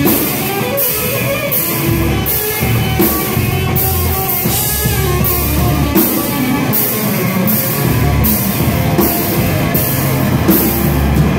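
Hardcore punk band playing live: loud distorted electric guitar and bass over a drum kit, with cymbal hits landing roughly once a second.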